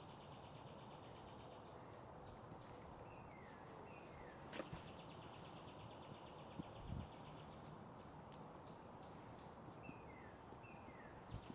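Faint birdsong: a bird repeating a song of two short falling chirps followed by a buzzy trill lasting about two seconds. A sharp click comes midway, and a few soft thumps come a little later and near the end.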